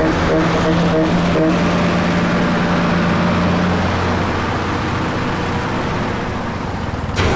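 A vehicle engine running steadily, with a low hum and road noise.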